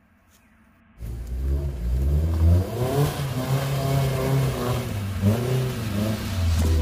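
Engine of a small Mitsubishi Pajero 4x4 revving up and down as the vehicle climbs a muddy dirt track under load. It comes in suddenly about a second in after a faint start.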